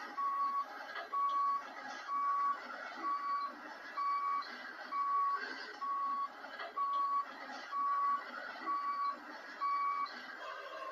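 Backup alarm on a Caterpillar wheel loader beeping steadily, about one beep a second at a single pitch, stopping near the end; heard through a TV speaker.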